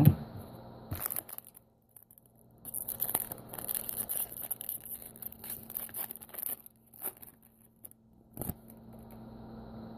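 A trading-card pack wrapper being torn open and crinkled, with a few light taps from handling the cards.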